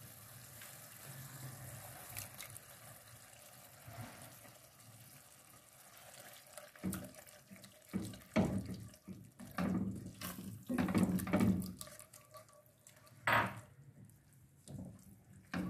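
Faint sizzle of chicken keema cooking on low heat, then from about seven seconds in a run of irregular, wet-sounding stirring strokes as a spatula mixes cream into the mince in an aluminium pan.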